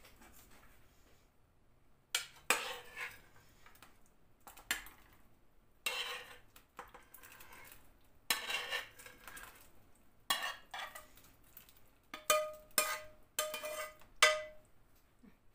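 Metal ladle scraping and knocking against a nonstick frying pan as sautéed potato and chicken cubes are scraped out into a pot of soup: about ten separate strokes starting about two seconds in, the last few ringing briefly.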